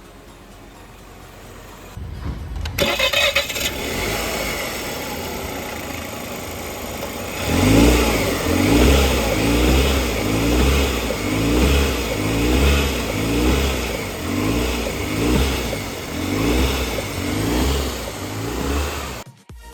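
Range Rover Sport TDV6 diesel V6 starting, then idling with a regular low thudding that pulses about once a second. The thudding is the symptom the repair puts down to a failed engine mount.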